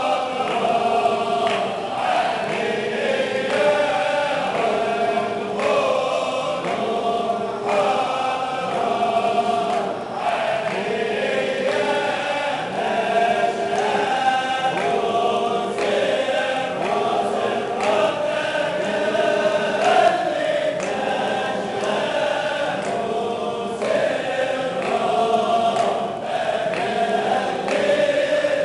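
Large congregation of men chanting a Sufi zikr together: devotional poems of the Shadhili saints sung over rhythmic calls of the divine names 'Allah' and 'Hu'. The singing is continuous and steady in level, in a regular pulse of held notes.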